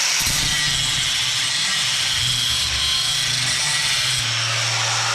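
Angle grinder with a ceramic flap disc grinding the steel edge of a lawn mower blade: a steady, loud grinding hiss over a high motor whine, sharpening the blade.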